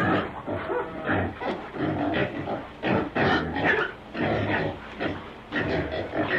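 A domestic animal calling repeatedly in short, irregular calls.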